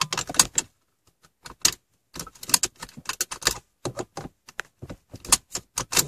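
Seat belt latch plate being repeatedly clicked into and pulled out of the driver's seat belt buckle of a 2003 Honda Accord, with the metal tongue rattling: many sharp clicks in irregular clusters.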